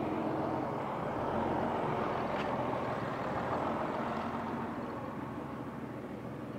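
Road traffic: a passing motor vehicle's engine and tyre noise, swelling over the first few seconds and then slowly fading.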